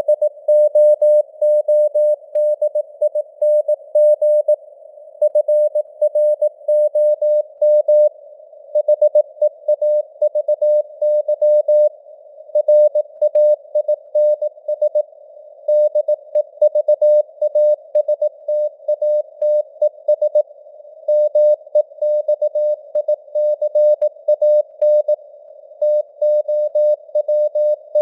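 Morse code (CW) tone of about 600 Hz keyed at 18 words per minute, in short and long elements with longer gaps between words. The tone sits in simulated radio band noise, a hiss close around its pitch.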